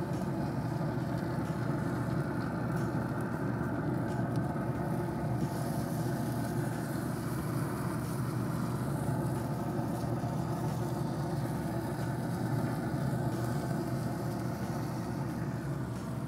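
Steady low mechanical rumble with a faint even hum.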